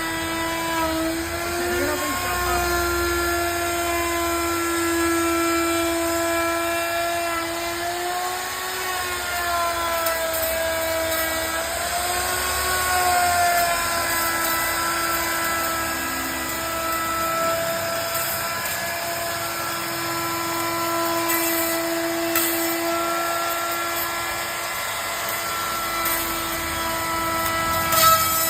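Handheld electric wood router running with a steady high motor whine, its pitch sagging briefly several times as the bit takes load in the wood.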